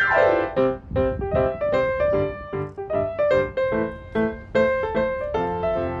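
Background piano music: a gentle melody of evenly paced notes, opening with a quick falling run.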